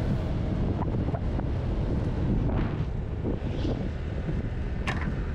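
Wind buffeting the microphone of a moving Honda Vario 160 scooter, with a steady low rumble of engine and road noise underneath.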